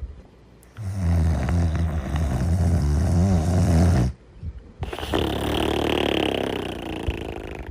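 Snoring in slow breaths: a low, rattling snore lasting about three seconds, then after a short pause a breathier, hissier breath.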